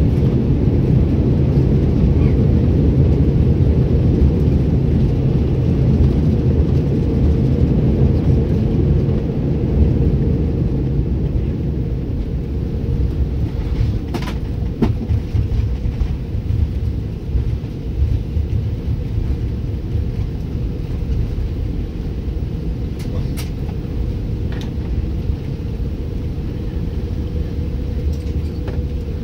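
Airbus A330 cabin noise during the landing roll: a loud low rumble of engines and wheels on the runway, with a steady hum, easing somewhat about ten seconds in as the aircraft slows. A few faint clicks come later.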